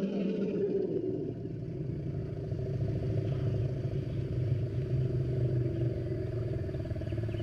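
Woolly mammoth sound effect: a long, low, pulsing rumble held at a steady pitch, with a higher tone falling away in the first second.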